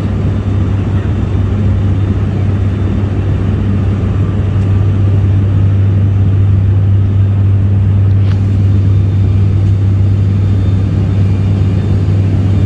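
Cabin drone of an ATR 72-600 turboprop airliner in flight: a loud, steady low hum from the propellers over the engines' rumble.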